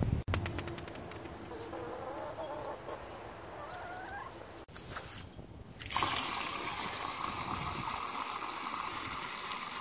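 Hens clucking for the first few seconds. Then, from about six seconds in, a steady stream of water pouring from a rain barrel's spigot into a galvanized metal chicken waterer, filling it.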